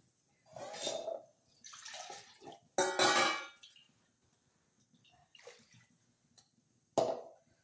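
Water poured in short splashes from a steel vessel into a steel pan of pea curry, with steel clinks against the pan. The loudest splash comes about three seconds in, and a sharp one near the end.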